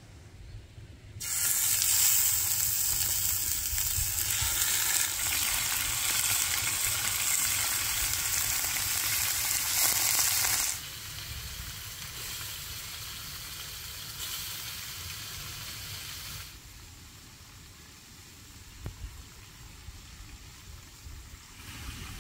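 Food frying in hot oil, sizzling. The sizzle starts suddenly about a second in, drops to a lower level about halfway through, and is quieter still in the last few seconds.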